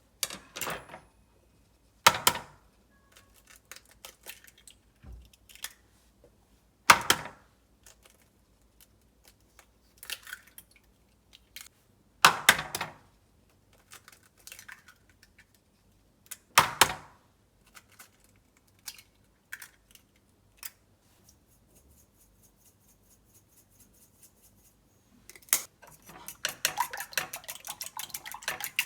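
Kitchen handling sounds: several sharp clacks of dishes and utensils spaced a few seconds apart, with quieter taps between them. About three-quarters of the way in, a fast, rapid run of clicking strokes starts.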